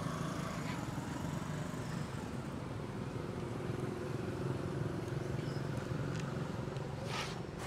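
A motor vehicle's engine running steadily, a low rumble, with a few short sharp crackles near the end.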